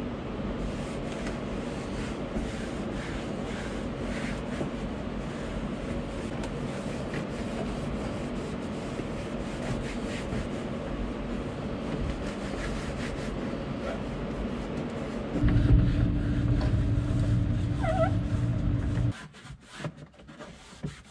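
A steady machine hum that grows louder for a few seconds near the end, then cuts off suddenly, with a rag rubbing over hard plastic panels.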